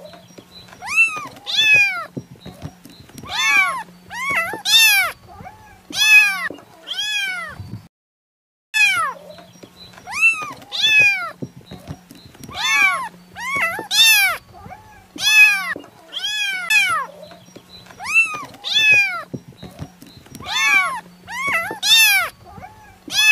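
A young tabby kitten meowing over and over, high-pitched calls about one a second, each rising and then falling in pitch, with a brief break about eight seconds in.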